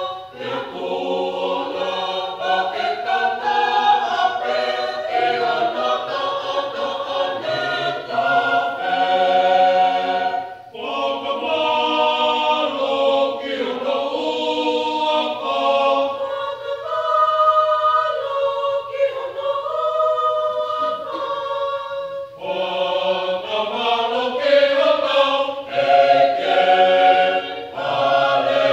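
Mixed choir of men's and women's voices singing a Tongan gospel song in harmony, unaccompanied. The phrases break briefly twice for breath, and the low voices drop out for several seconds in the middle, leaving the upper parts.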